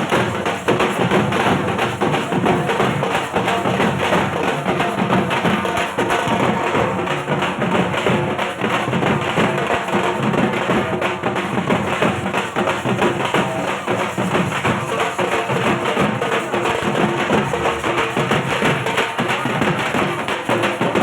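Dhak, the large Bengali barrel drum beaten with sticks, played in a fast, unbroken rhythm of dense strokes.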